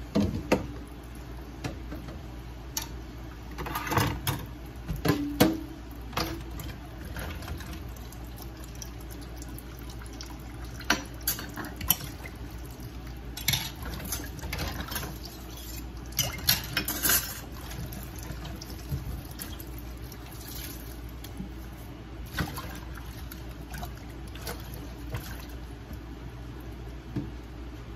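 Kitchen handling sounds: irregular clinks and knocks of metal cookware and utensils around a colander of wet salt cod, with some wet, liquid sounds, over a steady low hum. The knocks come in clusters, about four seconds in and again from about eleven to seventeen seconds.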